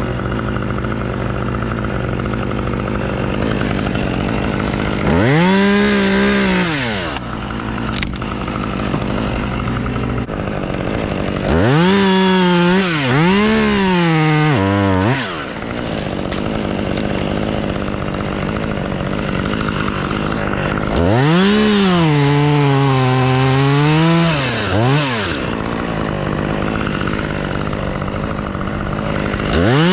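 Chainsaw idling, then revved up again and again to cut, about four times, each spell lasting a few seconds. On each cut the engine note rises, sags and wavers as the chain bites into the wood, then drops back to idle.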